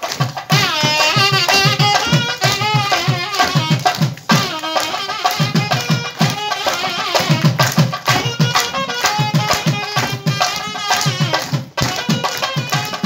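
Traditional Indian music: a gliding, ornamented melody over rapid hand-drum strokes.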